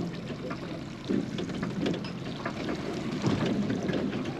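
Wind and water noise aboard a small fishing boat at sea, a steady rushing haze with a couple of faint soft bumps.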